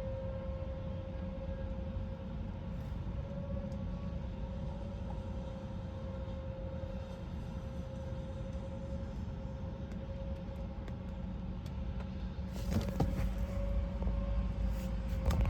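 Outdoor tornado warning siren holding a steady wail at a distance, half-covered by a low rumble. A rushing noise builds in about twelve seconds in and the overall level rises.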